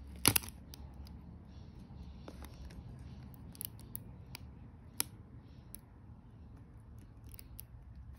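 Metal tweezer tips clicking and scraping against the plastic butterfly-switch retainer clip of a MacBook Pro keyboard key. One sharp loud click comes about a quarter second in, followed by scattered lighter ticks.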